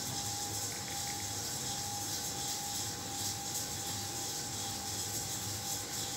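Gas-heated popcorn machine running on a test cook, its motorised stirrer turning in the kettle: a steady scraping rub over an even hiss, with a faint steady whine.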